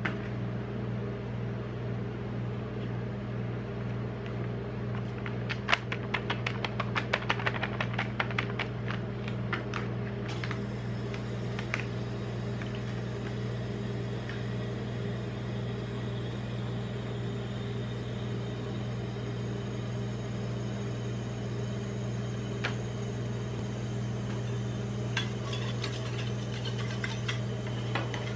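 Steady hum of a rolled-ice-cream machine's refrigerated cold plate running. About six seconds in comes a quick run of crackles and taps as the plastic drink pouch is handled. Near the end, steel spatulas scrape and tap on the frozen plate.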